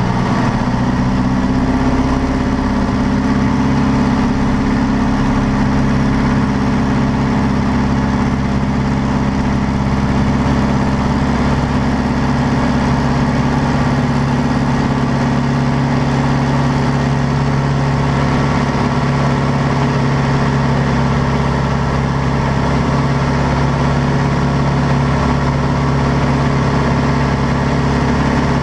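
De Havilland Canada DHC-1 Chipmunk's piston engine and propeller opening up to full power about a second in, then running steadily at full throttle through the takeoff run and lift-off, heard from inside the cockpit.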